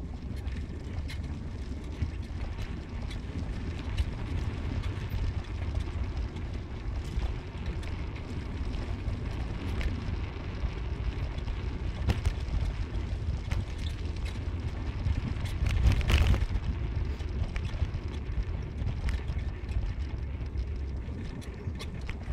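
Car driving: a steady low road and engine rumble with scattered small knocks and rattles, swelling briefly about three-quarters of the way through.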